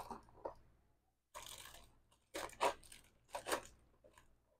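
A few short, faint crinkling and clicking handling sounds, roughly one a second, as thin metal cutting dies are handled and set against a rubber magnetic storage sheet.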